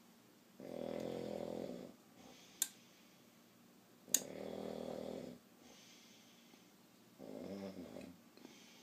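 A sleeping man snoring: three rasping snores about a second long each, roughly three seconds apart, the last one softer. Two short sharp clicks are heard between them, the louder one just as the second snore begins.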